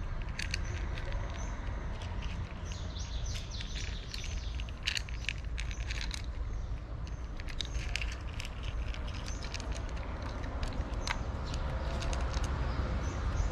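Cats crunching dry kibble from plastic bowls: irregular clusters of sharp, crackly crunches over a steady low background rumble.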